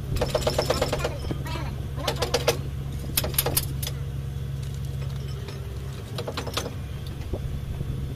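Low steady hum of a ballast cleaning machine's diesel engine running, with a fast mechanical rattle in the first second and then several sharp metal clinks of the excavating chain being handled and fitted.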